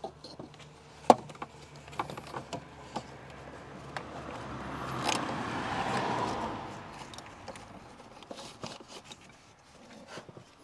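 Gloved hands working an ignition coil into place among the hoses and wiring at the back of a BMW S65 V8 engine bay: scattered small plastic clicks and knocks, the sharpest about a second in, and a rubbing scrape that swells and fades around the middle.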